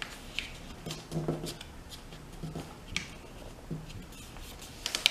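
Sheet of paper being handled and creased into a paper airplane: a few short, crisp rustles and crinkles, with a quick pair near the end.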